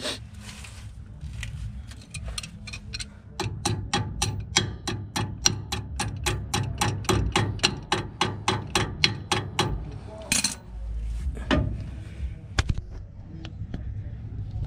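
Ratchet wrench clicking in an even rhythm, about four clicks a second, as the upper ball joint's castle nut is turned on a drop spindle. It is followed by a short metallic clatter and a single knock about ten seconds in.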